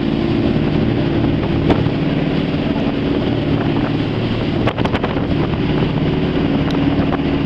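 Jet boat's engine running steadily as the boat moves along the river, with wind buffeting the microphone. A few brief knocks about five seconds in.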